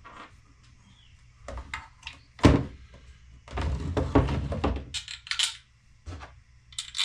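Knocks and clunks of a motor controller being handled and fitted inside a plastic dirt-bike air box: a sharp knock about two and a half seconds in, then a second or so of clattering, with a few lighter clicks near the end.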